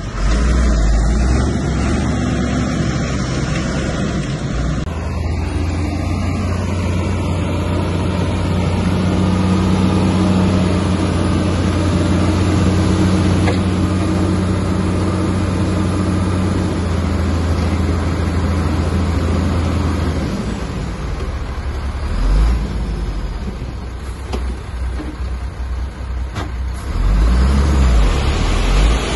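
Diesel engine of heavy earthmoving machinery running, a steady low drone through the middle that turns uneven, with louder surges near the end.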